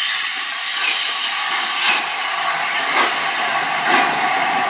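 LNER A4 Pacific steam locomotive 60009 Union of South Africa pulling a train away slowly: a steady hiss of steam, with exhaust beats about once a second.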